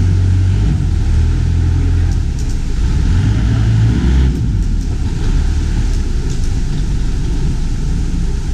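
A small motorboat's engine running steadily as the boat travels, with a loud low rumble throughout.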